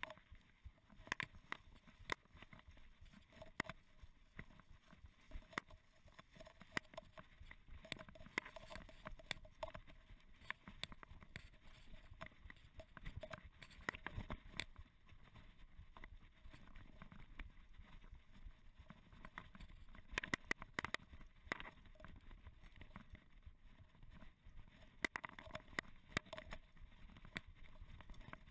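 Mountain bike riding down a bumpy grass track: the frame and parts rattle and knock irregularly over a low rumble of the tyres.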